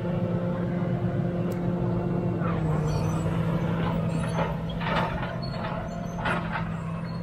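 CAT D7G crawler bulldozer's six-cylinder diesel engine running steadily as the machine crawls along, its pitch dipping slightly a little under 3 s in. Irregular clanks and short squeals from the steel tracks come through in the middle seconds.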